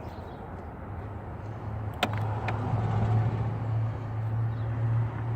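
A car engine running steadily, a low hum that grows louder about two seconds in, with two sharp metallic clicks just after.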